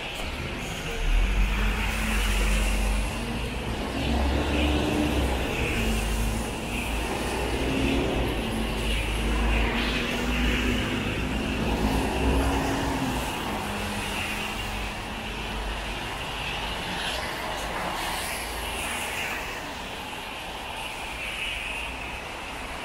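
Steady hiss of light rain and traffic on a wet city road, with a motor vehicle's engine running close by from about a second in until about halfway through, then fading.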